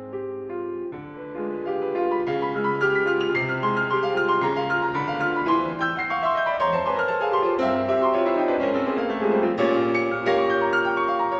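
Background piano music, building in loudness about two seconds in, with a long descending run of notes in the middle.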